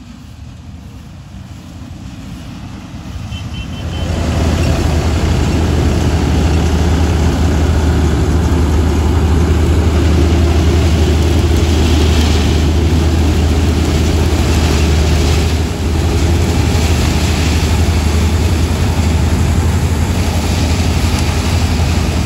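Combine harvester and tractor engines running close together: a loud, steady machine drone with a strong low hum. It swells over the first few seconds as they come near, then holds even, with a brief dip about two-thirds of the way through.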